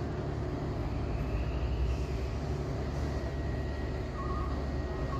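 Heavy diesel truck engine running with a steady low rumble as the loaded truck rolls backward after failing the climb. Short, evenly spaced beeps start about four seconds in.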